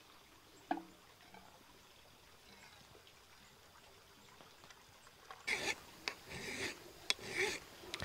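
Liquid poured from a tall metal pot into a tin cup, a faint trickle, with a single click under a second in. From about five seconds in come several short, rasping hand-scraping strokes and a sharp click; these are the loudest sounds.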